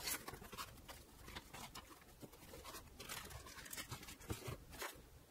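Faint rustling, scraping and light taps of a cardboard box and its packaging being opened and handled by hand, in a string of small irregular clicks.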